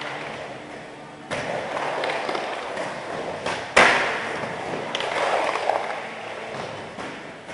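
Skateboard wheels rolling over a skatepark ramp. A knock about a second in starts the rolling, and a single loud, sharp clack of the board striking the ramp comes near the middle.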